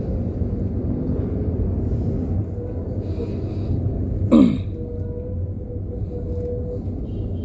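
Low, steady rumble of a Toyota Wigo's engine and road noise heard inside the moving car, with one short cough about four seconds in.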